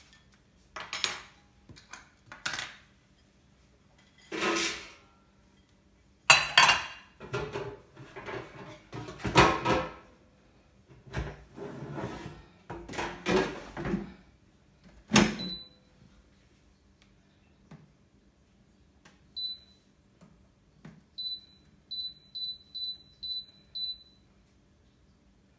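Clattering and knocking of the air fryer basket being handled, then the Milex 5.6 L air fryer's control panel beeping: one short high beep, then a quick run of about seven beeps as the cooking time is set.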